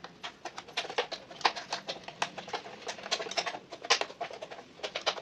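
Metal hand tools, a spanner and a screwdriver, clicking and scraping on the motor mounting bolts of a tabletop wet grinder as they are loosened to free the motor. The clicks are quick and irregular.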